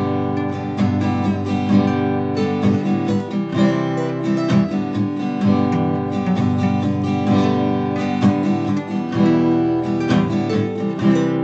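Acoustic guitar strummed in a steady rhythm, chord after chord, through an instrumental break with no singing.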